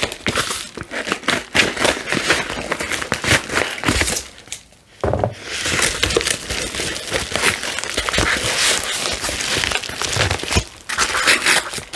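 Paper and plastic mailer envelopes rustling and crinkling as they are handled and albums are slid out of them, with a brief lull about four seconds in.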